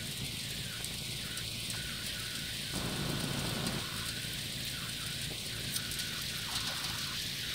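Steady rain falling on a waterlogged lawn, an even hiss with a low rumble underneath.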